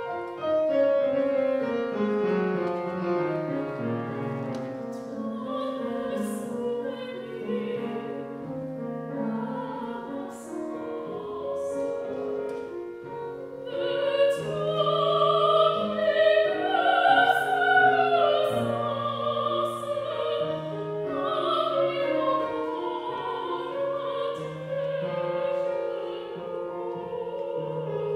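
Soprano singing a French art song with grand piano accompaniment. A falling piano line sounds over the first few seconds, and the voice, with a wide vibrato, is loudest in the second half.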